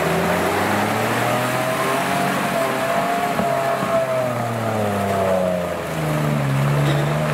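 Off-road vehicle's engine running under varying load, its pitch rising slowly and then easing off, with a short dip about six seconds in before it picks up again.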